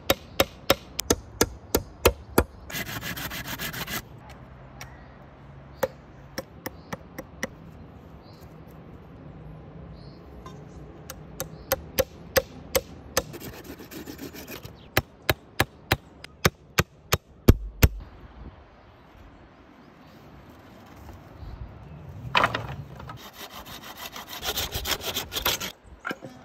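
Claw hammer driving nails into wooden branches, in runs of sharp knocks a few a second, broken by short spells of scraping on wood.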